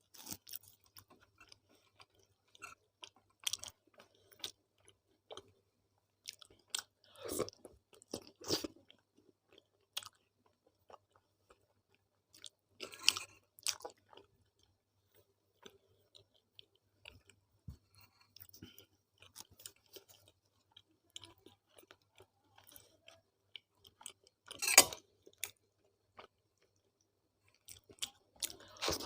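Close-miked chewing and mouth sounds of a person eating a meal of tawa roti, arhar dal and potato-fenugreek sabji. The soft smacks and clicks are irregular, with a few louder bites, the loudest about 25 seconds in.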